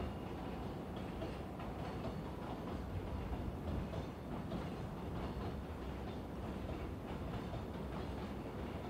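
Freight train's wagons rolling past in a steady rumble, with wheels clicking over the rail joints.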